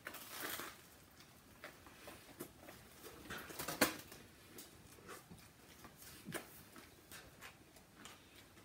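Faint, scattered mouth sounds of someone chewing a sandwich: soft clicks and smacks at uneven intervals, the loudest about four seconds in.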